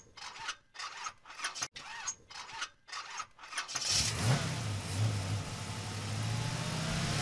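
Car engine being cranked by the starter in a steady pulsing rhythm, catching about four seconds in and settling into a steady running hum.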